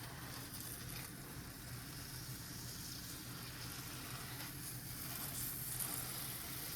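An American Wagyu top sirloin steak searing in a hot pan with garlic: a steady, fairly quiet sizzle.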